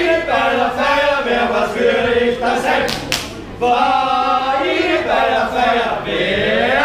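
A group of voices singing or chanting together in unison, in two long phrases with a short break about two and a half seconds in.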